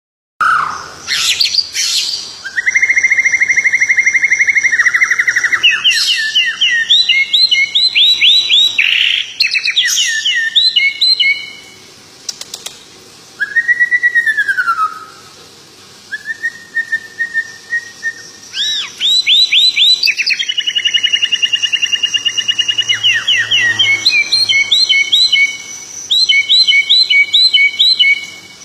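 A songbird singing a long, varied song: steady buzzy trills, runs of rapidly repeated sweeping chirps and slurred whistles, broken by a couple of short pauses.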